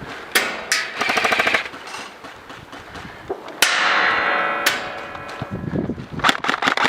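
Airsoft guns firing: a couple of single cracks, then a rapid full-auto burst about a second in, a longer burst in the middle and another quick string of shots near the end.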